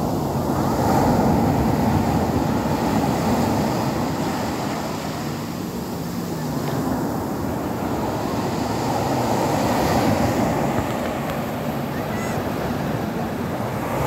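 Rough sea surf breaking on a beach: a continuous rush of crashing waves and churning foam. It swells louder about a second in and again around ten seconds, as successive breakers come in.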